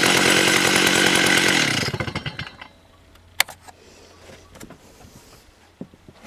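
Stihl 084 two-stroke chainsaw engine running steadily, then slowing and stopping a little under two seconds in. A sharp click follows about a second later.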